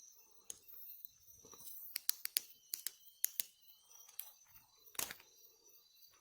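Campfire crackling: irregular sharp clicks and pops, with one louder knock about five seconds in, over a faint steady high chirring of night insects.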